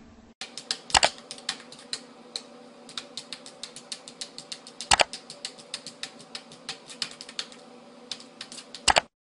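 Rapid, uneven clicking, several clicks a second, like keys being typed, with three louder knocks about a second in, in the middle and near the end.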